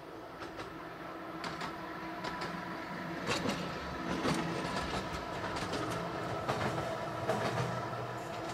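Narrow-gauge electric tram approaching and rolling past: a steady motor and gear hum with irregular clicks of the wheels over rail joints, growing louder over the first few seconds.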